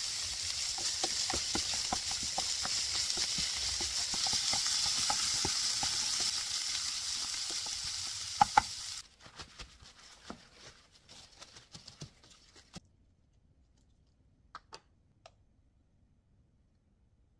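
Minced pork and sliced green chillies sizzling in a nonstick frying pan while a wooden spatula stirs and scrapes through them, with two sharp taps about eight and a half seconds in. The sizzle cuts off suddenly around nine seconds, leaving a few quiet scrapes and then near silence with faint ticks.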